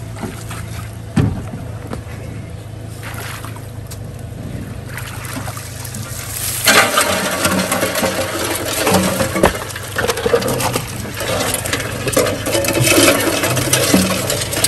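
Outboard motor idling with a steady low hum. About halfway through, a crawfish trap is shaken out onto the boat's metal sorting tray, bringing a dense run of rattling, scraping and dripping water from the wet crawfish and mesh.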